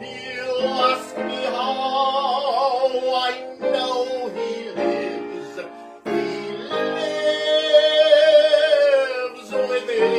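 A hymn sung with a wavering vibrato to upright piano accompaniment, in sustained phrases with short breaks between them.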